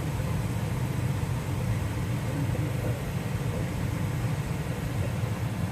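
Newly installed gas furnace running, its blower pushing a steady rush of air through a heating vent with a low rumble.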